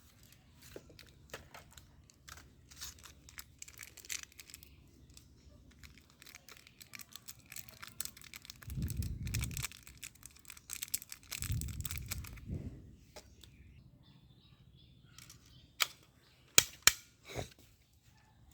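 Handling noises: crinkling and rustling with many small clicks, two low dull thumps in the middle, and a few sharp, loud clicks near the end.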